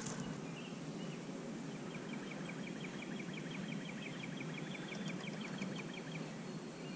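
Steady low rush of river water around a wading angler. For about four seconds in the middle, a fast, even run of light ticks, about six a second, plays over it.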